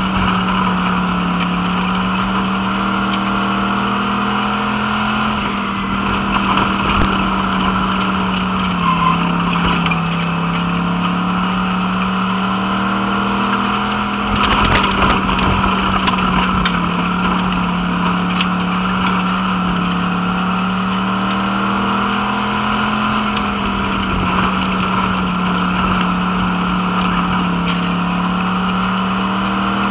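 Dirt-track Pure Stock race car's engine heard from inside the cockpit, its note climbing and then dropping every several seconds as the driver goes on and off the throttle around the oval. About halfway through there is a brief burst of harsher clatter.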